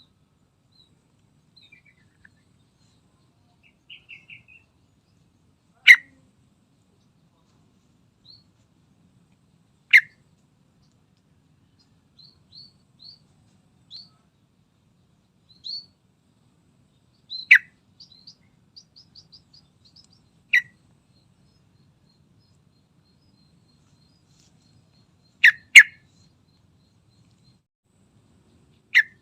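Sooty-headed bulbul calling: loud, very short sharp notes every few seconds, two in quick succession near the end, with softer high chirps and a quick little run of twitters between them.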